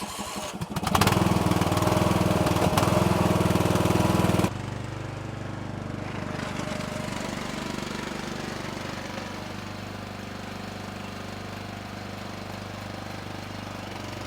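A small engine running steadily, louder for the first few seconds and then dropping abruptly to a quieter, even run about four and a half seconds in.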